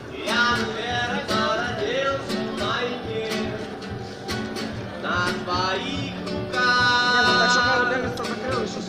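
Street musicians playing reggae: guitar strumming under a singing voice, with one long held sung note about seven seconds in.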